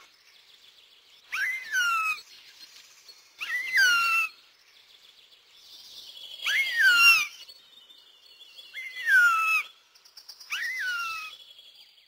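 Northern goshawk (Accipiter gentilis) calling: five drawn-out wailing calls a couple of seconds apart, each rising briefly and then sliding down in pitch. Fainter small-bird twittering can be heard between the calls.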